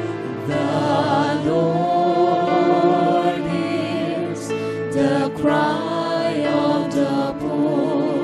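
Christian worship music: sung voices with vibrato over sustained instrumental chords.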